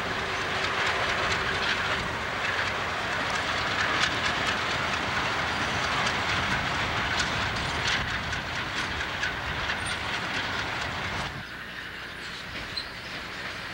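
Freight train with diesel locomotives rolling slowly past, with steady rumbling and wheels clicking over rail joints. About eleven seconds in the sound drops off suddenly to a much quieter background.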